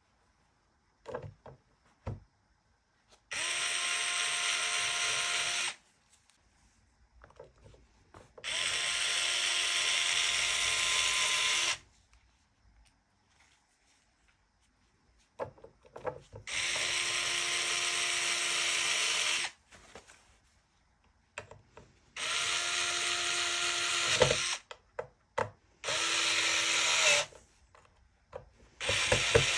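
A small electric drill running in six short bursts of a few seconds each, steady in pitch. There are small clicks and handling knocks between the bursts.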